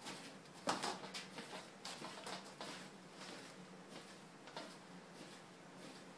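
Clay being spiral wedged by hand on a wooden bench: a run of soft pushes and pats of the clay against the wood, a few a second, the loudest about a second in, then growing fainter.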